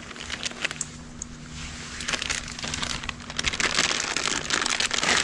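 Small clear plastic bag crinkling as it is handled and opened, sparse crackles at first, then a dense run of crinkling from about two seconds in.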